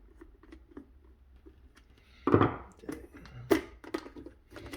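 Light metal clicks and taps of a screwdriver and hands loosening the ground-wire screw on a garbage disposal, with a brief louder scrape about two seconds in and a few sharper taps after it.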